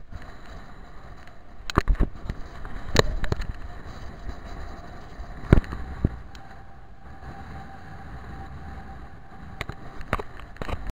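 Wind rumbling on the camera's microphone, with several sharp knocks from the camera being jostled and handled. The loudest knock comes about five and a half seconds in.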